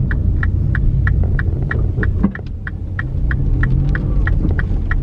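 A car's turn-signal indicator ticking steadily, about three ticks a second, over the low rumble of the engine and tyres inside the cabin.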